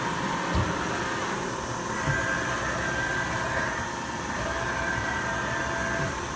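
Mori Seiki SV-503B vertical machining center running a program: a steady mechanical hum with several whining tones that strengthen about two seconds in and fade near the end. Two brief soft thumps about half a second and two seconds in.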